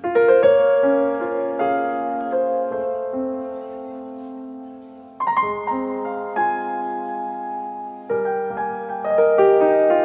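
Background piano music: slow held chords, with new chords struck about five seconds in and again about eight seconds in.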